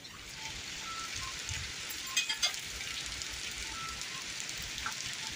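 Steady rain falling, an even hiss, with a few faint clicks a little over two seconds in.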